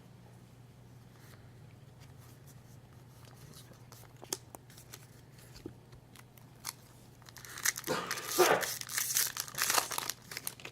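A Magic: The Gathering booster pack's foil wrapper tearing and crinkling, loud for about two and a half seconds near the end, after a few faint clicks of handling.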